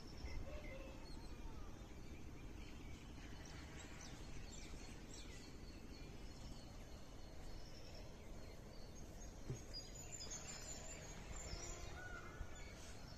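Outdoor morning ambience: a steady low rumble on the phone's microphone, with small birds chirping in short, scattered calls throughout.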